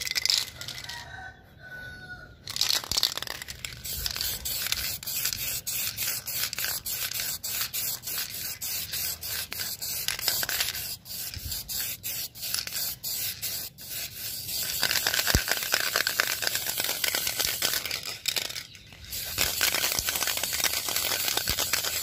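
Diton aerosol spray-paint can hissing as clear coat is sprayed, in many short bursts with a few brief pauses; the can is nearly empty.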